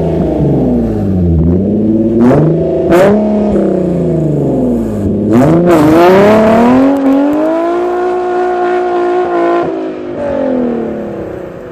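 Engine revved repeatedly through its exhaust, the pitch rising and falling several times, then held at steady high revs for a few seconds before dropping back, with the sound fading near the end.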